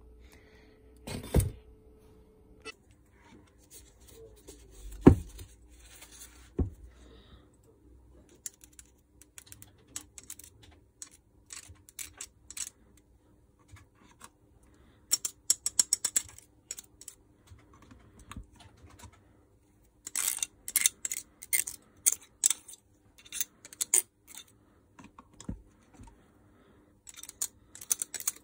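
Handling of a garden shredder's metal gearbox parts on a workbench: a few sharp knocks in the first seven seconds, the loudest about five seconds in, then runs of quick light clicks and rattles as the gear housing is greased.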